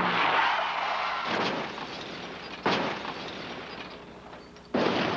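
Car crash sound effect: a rush of noise, then crashing impacts about a second in and near the middle, and the loudest crash near the end.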